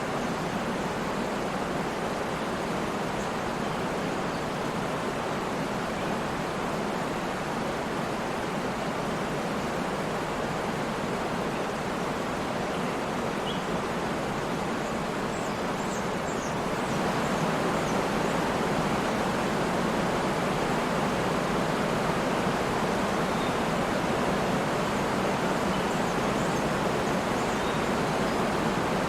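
Waterfall: a steady rush of falling water that grows slightly louder about seventeen seconds in.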